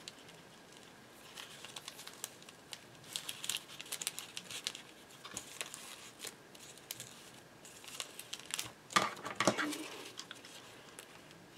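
Clear plastic treat bag crinkling and rustling in light, scattered bursts as a satin ribbon is tied into a bow around its neck, with a louder burst of crinkling and clicks about nine seconds in.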